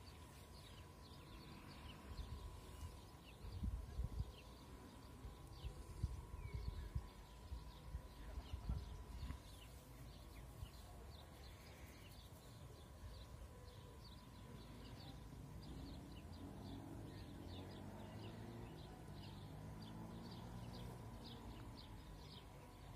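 Faint outdoor ambience: many short, high chirps repeat throughout, with a few low rumbles in the first half.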